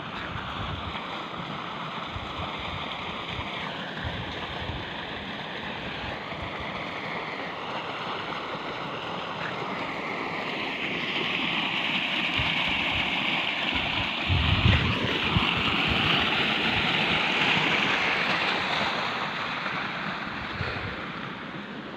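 Wind buffeting the microphone over a steady rushing hiss, with irregular low thumps; the hiss grows louder about halfway through and eases off near the end.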